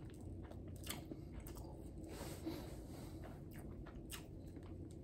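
Faint chewing and biting of a nori-wrapped salmon rice ball, with a few small clicks scattered through.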